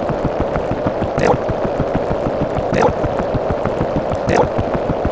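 A dense, loud mix of overlapping sound effects forming a noisy wash, with a short sharp sound repeating about every one and a half seconds.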